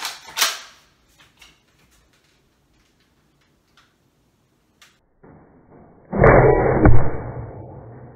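A Nerf foam-dart blaster fires, with a sharp crack and clicks in the first half second and a few faint ticks after. About six seconds in comes a loud, muffled burst about a second long that dies away over the next second.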